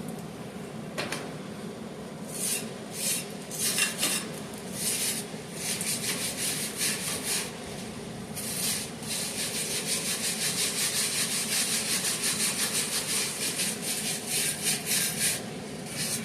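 Metalwork on the steel fuel-access fitting: a few short rasping bursts, then two long stretches of quick, even rasping over a steady low hum.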